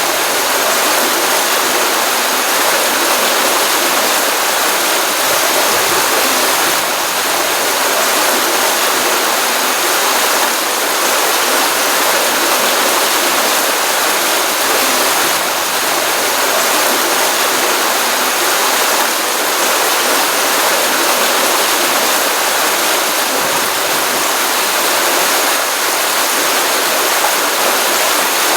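Steady rushing of a pond's outflow stream, full after a rainstorm, water pouring continuously with an even hiss.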